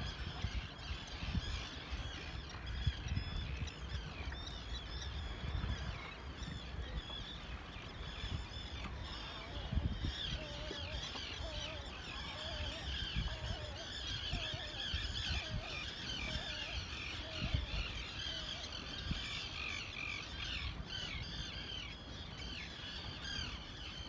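Many seabirds calling over one another, a steady chorus of short high calls, with a run of lower repeated calls in the middle. An uneven low rumble sits underneath.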